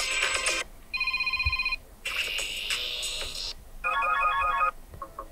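Short previews of the Blackview A90's default Android ringtones played one after another: about four different electronic melodies, each a second or so long, cut off abruptly as the next one starts.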